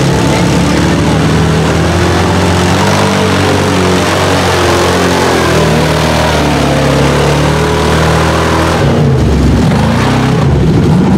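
Mega mud truck's engine revving hard under load as its big lug tyres spin and churn through deep mud, the pitch rising and falling with the throttle. The note eases off briefly about nine seconds in, then picks up again.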